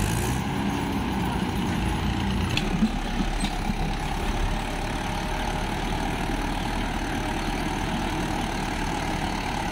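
Tractor diesel engine running steadily under load while hauling a sand-laden trailer through wet sand and shallow water.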